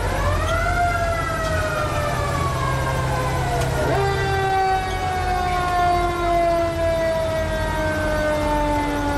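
Fire truck's mechanical siren winding up near the start, coasting slowly down, then winding up again about four seconds in and slowly falling in pitch, over a low engine rumble.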